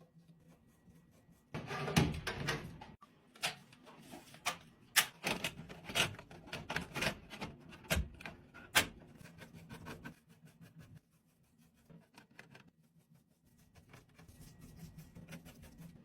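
Computer parts being handled during assembly: a brief scraping rustle about two seconds in, then a run of sharp clicks and knocks, thinning out to a few faint ticks after about ten seconds.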